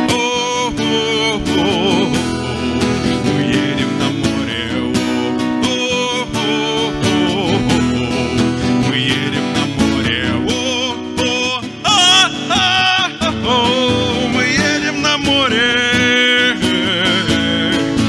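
Two steel-string acoustic guitars strumming a bard-style song, with a man's singing voice over them, wavering in pitch.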